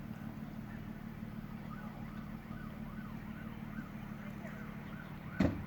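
An emergency vehicle siren wailing, its pitch rising and falling about twice a second, over a steady low hum. There is one sharp knock near the end.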